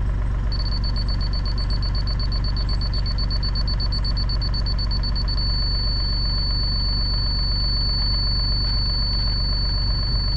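Laser level receiver on a grade rod beeping rapidly in a high tone, then settling about halfway through into a solid continuous tone, which marks the rod reading on grade. Under it, a heavy machine's engine idles steadily.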